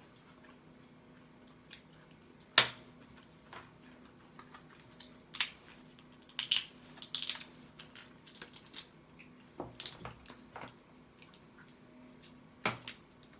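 Close-up eating sounds: a boiled whole lobster's shell being cracked and pulled apart by hand, heard as scattered sharp cracks and snaps with wet squishes in between. The loudest crack comes about two and a half seconds in, a quick cluster follows around the middle, and another sharp crack comes near the end.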